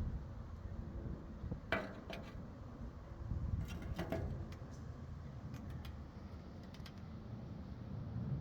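Handling noise: a few light clicks and clinks in small clusters over a low steady rumble.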